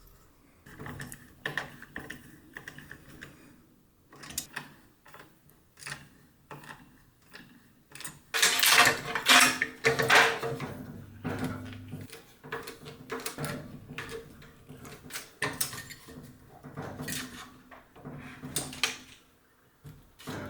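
Handling noises of PC hardware being assembled: irregular clicks, knocks and rubbing, busiest and loudest about eight to eleven seconds in.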